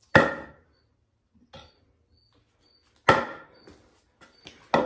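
A hand-carved wooden walking staff knocking on a concrete floor: three sharp knocks, one right at the start, one about three seconds in and one near the end.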